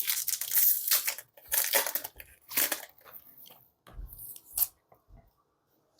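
Foil Pokémon TCG booster pack wrapper being torn open by hand, with several short ripping, crinkling rasps in the first three seconds, then a few softer crinkles and taps about four seconds in.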